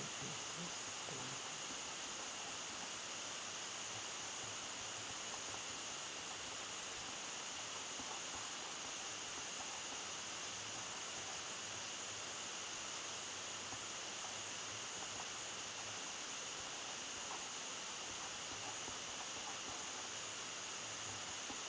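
Steady hiss of background recording noise, with faint scratching of a pen writing on paper.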